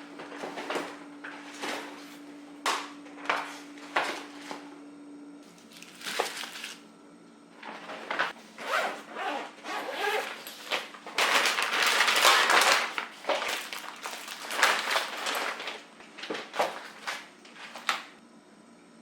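Rustling of packaging or bags with scattered knocks and clatter of items being handled, and a longer burst of rustling a little past the middle. A faint steady hum stops about five seconds in.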